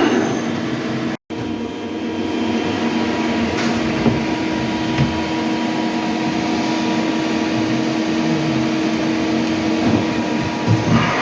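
Hyundai HIT 8 S CNC lathe running with a steady mechanical hum and whine, cut off for an instant about a second in. Near the end a whine rises in pitch.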